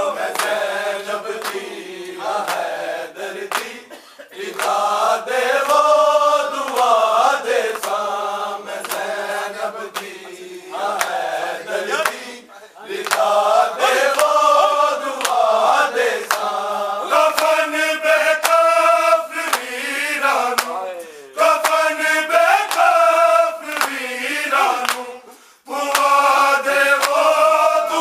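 A group of men chanting a nauha, a Shia mourning lament, in unison in long rising and falling phrases with short pauses between them. Under it runs a steady beat of sharp slaps, the rhythm of matam chest-beating.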